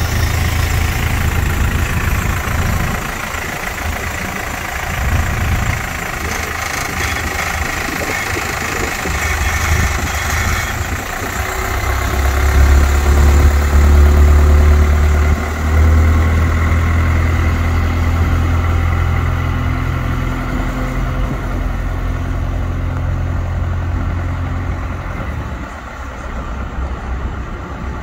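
2007 TUG MA50 baggage tractor's engine running just after starting. It grows louder about twelve seconds in as the tractor drives off, then fades as it moves away.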